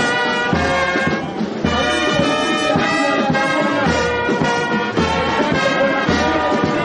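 Music led by brass instruments, with sustained notes over a steady low beat.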